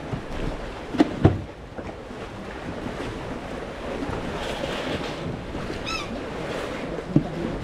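Steady wind and water noise, with two sharp knocks about a second in, another near the end, and a brief high chirp around six seconds in.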